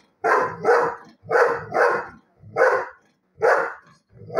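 A dog barking at the television: about six short, sharp barks, the first four in two quick pairs, then single barks a second or so apart.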